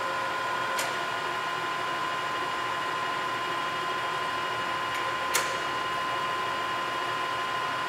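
Bed-type milling machine running steadily with a constant whine, as its head is demonstrated on automatic vertical feed. Two sharp clicks from the head's controls, one about a second in and one about five seconds in.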